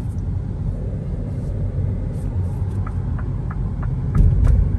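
Road and tyre rumble inside the cabin of a Mini Cooper SE electric hatchback as it accelerates gently, with no engine note. A light, rapid ticking comes in about three seconds in, and a louder low thump follows a little after four seconds.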